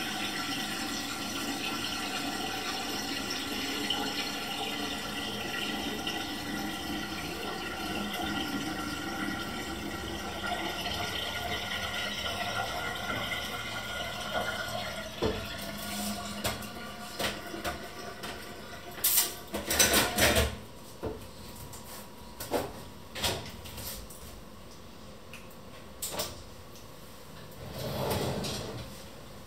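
Kitchen tap running into a stainless steel sink while a pot is washed by hand, the rush of water fading out about halfway. Then a string of separate knocks and clunks of dishes and metal in the sink, the loudest about two-thirds of the way in.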